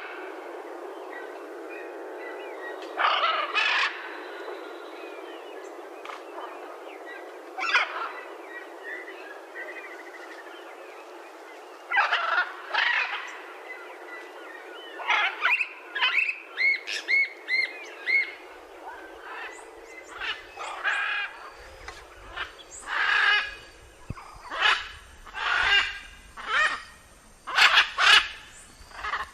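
Macaws calling with loud, harsh squawks. At first single calls come a few seconds apart, then a quick run of short repeated notes, and the calls come thick and fast near the end.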